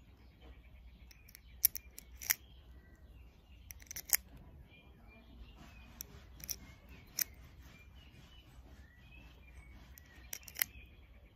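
.22 LR cartridges being pressed one by one into a CZ five-round rimfire magazine. Each round gives a sharp click as it snaps in past the feed lips, and there are several clicks spaced a second or more apart.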